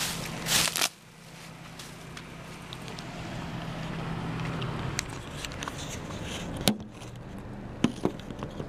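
Bubble wrap and plastic sheeting crinkling loudly as they are grabbed and handled, for under a second near the start. Then a steady low hum with a few sharp clicks and knocks of handling.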